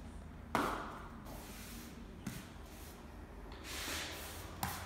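Grout float scraping and rubbing grout across floor tiles, with a sharp knock about half a second in, a smaller knock in the middle and a click near the end.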